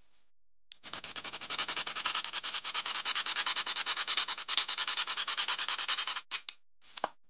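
A small white part rubbed quickly back and forth on a hand-held sanding block: a fast, even run of short scraping strokes lasting about five seconds, then two brief strokes near the end.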